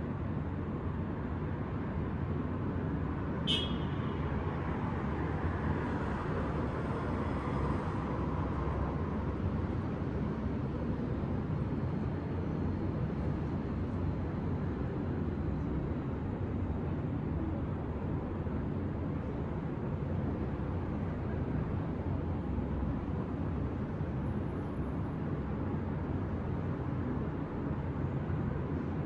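Steady city traffic noise, a low rumble of distant vehicles. A single sharp, high, short sound comes about three and a half seconds in, and a vehicle passes a little closer soon after.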